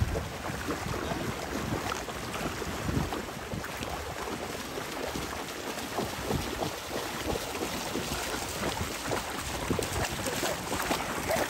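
Shallow seawater splashing and sloshing as a person and two dogs wade through it, an uneven run of small splashes.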